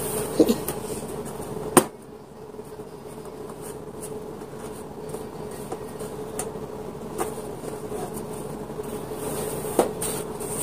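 Clear acrylic hamster-cage panels clicking and knocking against each other as they are handled and fitted together: a few sharp taps, the loudest about two seconds in, over a steady low hum.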